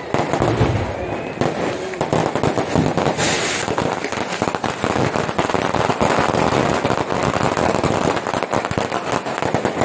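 Fireworks going off: a dense, continuous crackle of many small bangs in quick succession, with a brief hiss about three seconds in.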